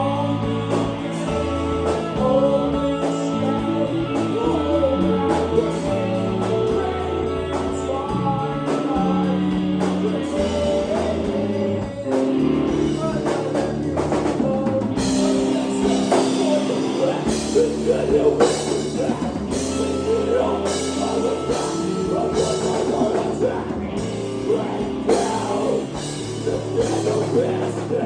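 Live rock band playing a song: drum kit, bass and other pitched instruments, with a voice singing. The drums hit harder and more often from about halfway through.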